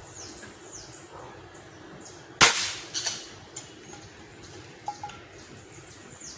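A 4.5 mm Gamo Big Cat 1250 spring-piston air rifle firing once: a single sharp crack about two and a half seconds in, fading over about half a second, with a few fainter knocks after it. Birds chirp faintly throughout.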